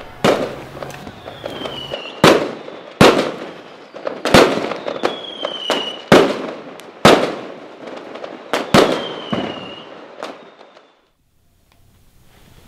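Fireworks going off: about nine loud bangs spread over some ten seconds, each trailing off in crackle, with a few high whistles falling slowly in pitch between them. The bangs end about eleven seconds in.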